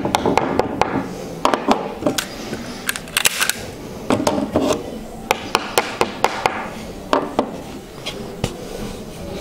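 Small hammer tapping tacks through linen canvas into a wooden stretcher bar, an irregular run of sharp light knocks, mixed with the clatter of the frame and tools being handled.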